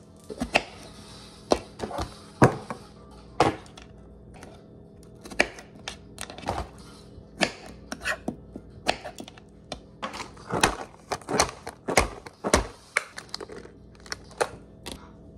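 A knife cutting strawberries on a hard countertop: irregular, sharp taps and knocks of the blade against the counter, several a second at times. Near the end a plastic blueberry container is handled.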